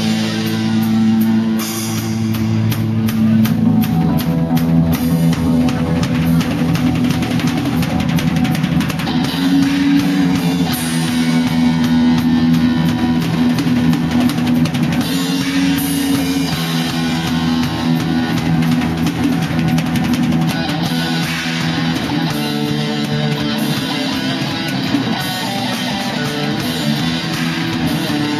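Rock music played on a drum kit and guitar, with steady, busy drumming over sustained guitar notes.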